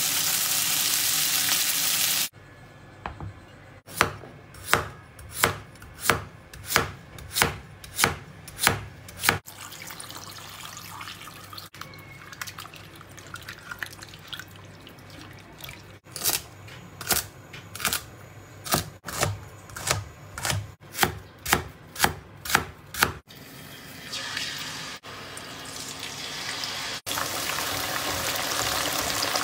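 Kitchen cooking sounds: a loud sizzle for the first two seconds, then a knife chopping on a cutting board in two runs of about two strokes a second, with quieter water sloshing between them. Near the end, potato slices deep-fry in hot oil in a wok with a loud, steady sizzle.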